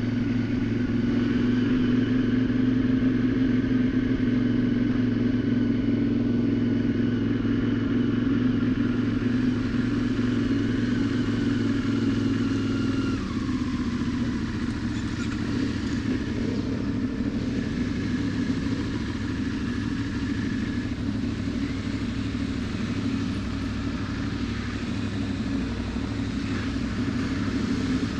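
Motorcycle engine running at a steady cruise, with road and wind noise. About halfway through, the engine note drops and settles lower.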